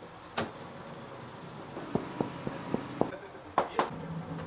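A series of sharp knocks and clicks over a low, steady hum. One comes about half a second in, then about seven more between two and four seconds in, the loudest near the end.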